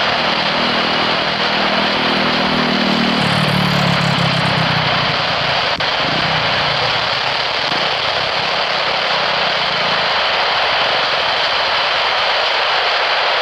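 Jet aircraft engines at close range: a loud, steady rush of noise with a low drone underneath that drops in pitch about three seconds in and fades out by about ten seconds.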